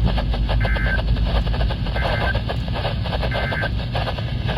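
Three short bursts of Emergency Alert System end-of-message data tones, sent about 1.3 seconds apart, which signal the end of the alert broadcast. They come through a weather radio receiver over steady crackling static and a low hum.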